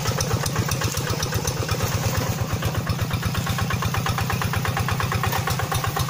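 Single-cylinder diesel engine of a two-wheel hand tractor running steadily, with a rapid, even beat.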